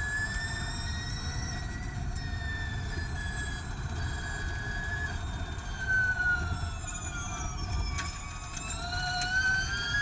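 Formula E Gen2 race car's electric motor and transmission whine at racing speed, several high tones together over a low road and tyre rumble. The whine drops in pitch from about five seconds in to a low point near eight seconds, then climbs again as the car picks up speed.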